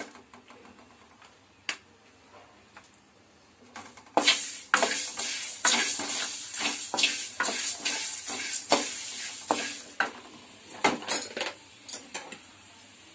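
A spoon scraping and clinking against a pan, stirring chana dal, coriander seeds and red chillies as they dry-roast. The stirring starts about four seconds in and runs fast for about six seconds, then thins to a few scattered clinks and stops.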